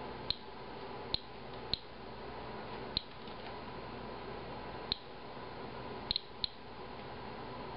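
Inspector Alert Geiger counter chirping at random intervals, each chirp one detected radiation count, about eight in this span, two coming close together about six seconds in. The count rate is that of a reading near 59 counts a minute, well above background, from a sample of Japanese green tea. A steady low hiss runs underneath.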